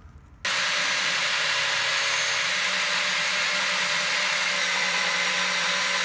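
Portable bandsaw mounted upright in a stand, running and cutting through 14-gauge half-inch mild steel square tubing. It is a steady whine over a hiss that starts abruptly about half a second in and holds an even level.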